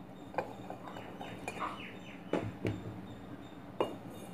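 Grated coconut being scooped out of a bowl and dropped into a steel puttu steamer tube: a few light clicks and taps of the utensil against the bowl and the metal rim, with soft rustling in between.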